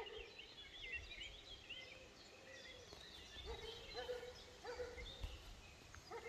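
Small songbirds chirping and singing, faint, with many quick rising and falling notes, over low outdoor background noise.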